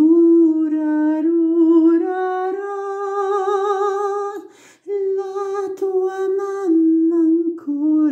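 A man's unaccompanied voice singing a Finnish lullaby in long held notes with vibrato, with a short break for breath about four and a half seconds in.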